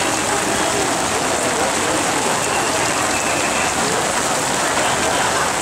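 Heavy rain falling steadily on umbrellas and plastic raincoats in a crowd.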